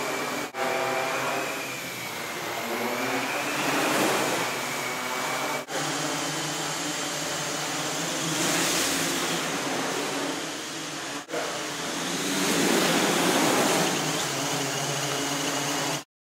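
Several quadrotors' propellers buzzing and whining in flight, the rotor pitches bending up and down as the motors speed up and slow down to steer. The sound swells louder a few times and cuts off suddenly just before the end.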